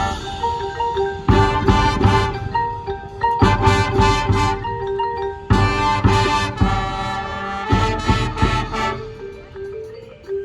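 High school marching band playing its competition show: sustained notes broken by four loud full-ensemble hits of brass and percussion, with marimba and xylophone from the front ensemble. The band thins out near the end, leaving mostly quieter mallet notes.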